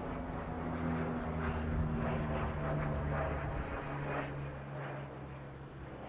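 Lockheed L-188 Electra air tanker's four turboprop engines droning steadily as it passes low. About four seconds in the pitch drops and the sound starts to fade as the plane flies away.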